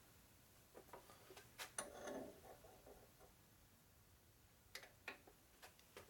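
Near silence with a few faint metallic clicks and taps as an outside micrometer is handled and closed onto a turned steel part.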